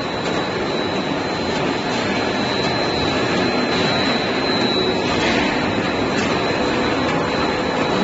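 Cable tray cold roll forming machine running, its roller stands forming a perforated sheet-metal strip: a steady mechanical running noise with a thin, steady high whine on top.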